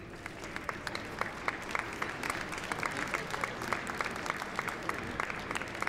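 Audience applauding: a dense patter of many hands clapping that grows slightly louder.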